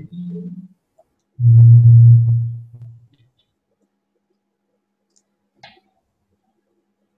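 A man's wordless held vocal sound, a low steady hum lasting about a second and a half, then quiet with a faint click about five and a half seconds in.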